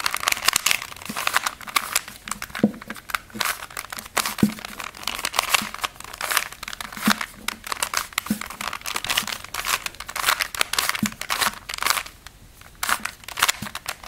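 A 3x3 Rubik's Cube being turned by hand in quick repeated moves, the same four-turn sequence over and over: rapid plastic clicking and clacking as the layers snap round, with a brief pause near the end.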